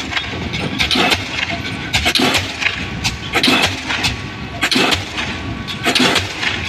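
Pile driver's hammer pounding a concrete pile, a heavy blow about every second and a quarter, over the steady running of the rig's engine.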